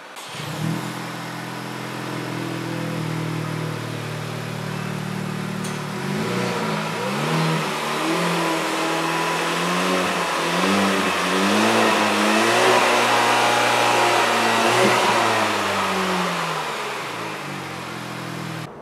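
Honda Civic Type R's 2.0-litre turbocharged four-cylinder idling through its quad exhaust. About six seconds in it is revved in a string of short throttle blips, the pitch rising and falling each time, then it settles back to idle near the end.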